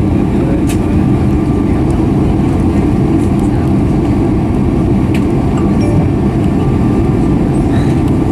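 Steady low rumble of a Boeing 757-200 taxiing, heard inside the cabin from a window seat over the wing: the jet engines at taxi power and the airframe rolling over the taxiway.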